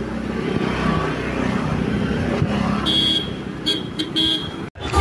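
Street traffic with scooters and motor vehicles running past, and about three seconds in a few short horn beeps. The sound cuts off abruptly just before the end.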